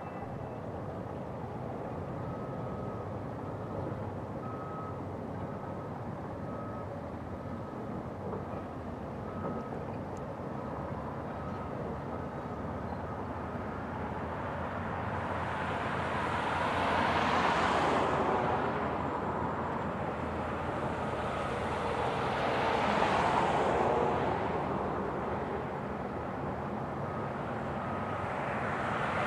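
Distant heavy mining equipment (diesel excavators and haul trucks) running steadily, with a backup alarm beeping at an even pace for the first half. In the second half, two long swells of louder rushing noise rise and fall.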